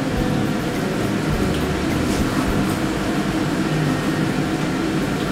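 Hot oil sizzling steadily as cha kway (fried dough sticks) deep-fry in a pan.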